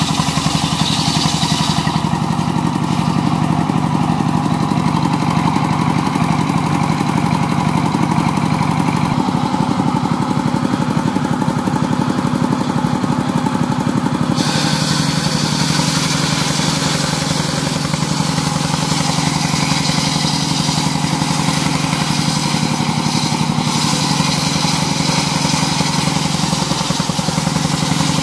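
Stationary engine of a portable sawmill running steadily under load, driving the saw blade through wood. A higher, hissing cutting noise over the engine drops away about two seconds in and comes back sharply about halfway through.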